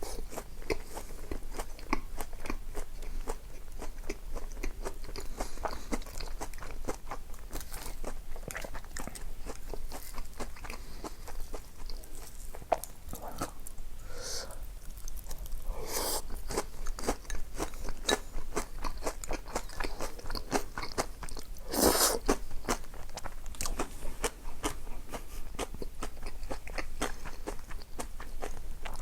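A person eating crunchy food, chewing and crunching steadily, with a couple of louder bites about halfway through and again about three quarters of the way in.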